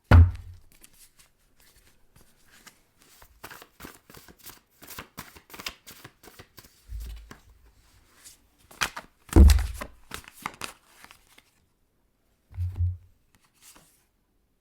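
A deck of cards being handled and shuffled: a run of light clicks and rustles with a few dull thumps. The loudest thumps come right at the start and about nine and a half seconds in.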